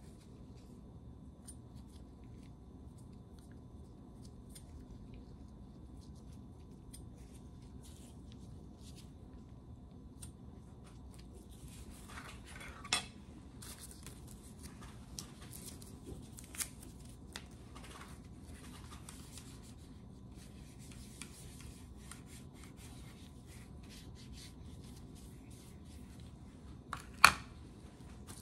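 Alcohol prep pads wiping a metal pharmacy spatula and weighing boats clean: soft, scattered rubbing and rustling, busier from about halfway, with a sharp click midway and a louder one near the end.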